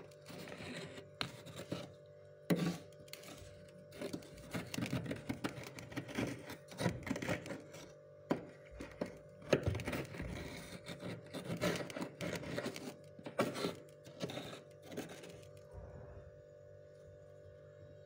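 Fingers scraping and crunching into thick, fluffy frost built up inside a freezer: a run of irregular crisp crunches that dies down about fifteen seconds in, over a steady low hum.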